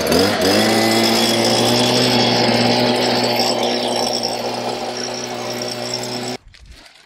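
Handheld blower motor running. Its pitch climbs quickly at the start, holds a steady whine, and cuts off suddenly near the end.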